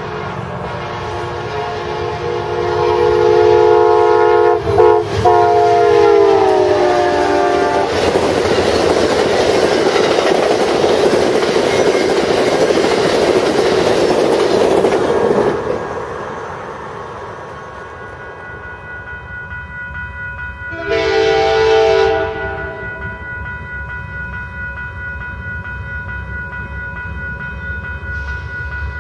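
Diesel locomotive's multi-chime air horn sounding as the train approaches, its chord dropping in pitch as it passes at speed, followed by the rushing rumble of the train going by. A second short horn blast comes about three quarters of the way through.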